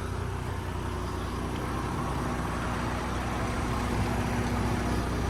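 Steady idling hum of the motorhome's running 3.0-litre turbo diesel engine and Onan propane generator, with a constant low drone that grows slightly louder toward the end.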